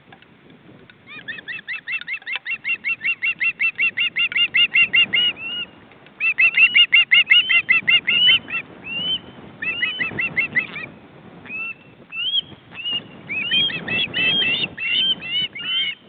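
Juvenile ospreys calling: rapid runs of short, rising, whistled chirps, about six or seven a second. The runs come in bursts with a few scattered single calls between them.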